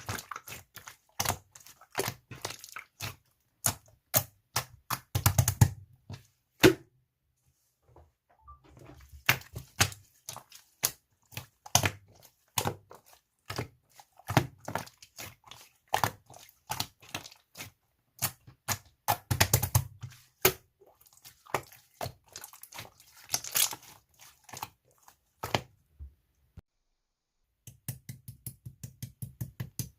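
Jelly slime being squeezed and pressed by hand, giving bursts of sharp popping clicks and crackles with short pauses between handfuls.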